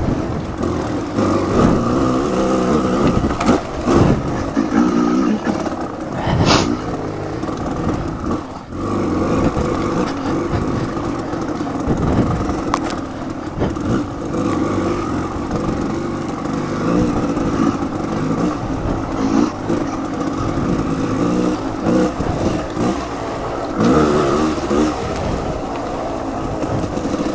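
Off-road motorcycle engine being ridden, revving up and down continuously, with scattered knocks and clatter.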